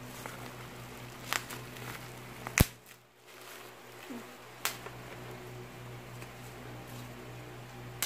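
Plastic bubble wrap being handled and picked open by hand: faint crinkling with a few sharp clicks, the loudest about two and a half seconds in.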